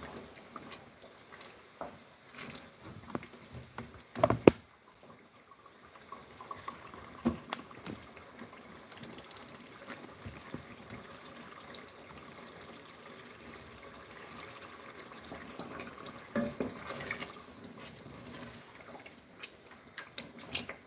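Tomato sauce being stirred with a wooden spoon in an aluminium pot: scattered knocks of the spoon against the pot, the loudest about four seconds in, with quiet wet sloshing between.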